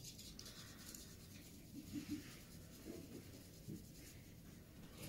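Faint scratching of a graphite pencil on drawing paper, in a couple of short stretches of strokes.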